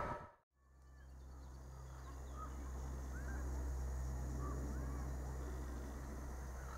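A distant HŽ class 2062 diesel locomotive approaches with a low, steady engine drone that swells over the first few seconds, while birds chirp now and then. In the first half-second the rumble of a passing train cuts off.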